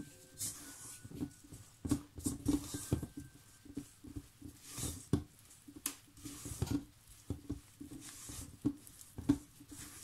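Rubber spatula scraping and knocking against a stainless steel mixing bowl in irregular strokes, stirring stiff, crumbly cookie dough.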